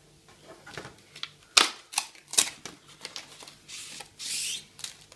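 Hands handling a keyboard guard's printed card insert and plastic packaging: several sharp clicks and taps around the middle, then two short bursts of paper and plastic rustling near the end.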